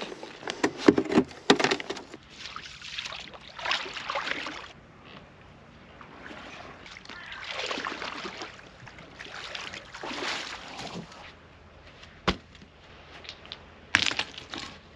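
Small waves washing in and drawing back on a pebble shore about every three seconds. Clatter of gear being handled near the start, a single sharp click about twelve seconds in, and a burst of knocks near the end.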